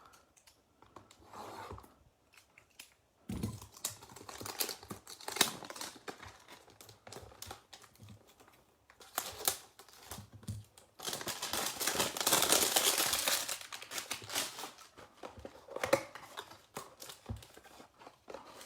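Plastic wrapping and cardboard of a trading-card hanger box being torn open and handled, with crinkling and clicking throughout and one longer, louder tearing crinkle about eleven seconds in.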